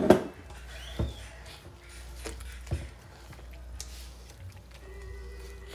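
Kitchen utensils and dishes being handled, with three short knocks in the first three seconds, over a low steady hum.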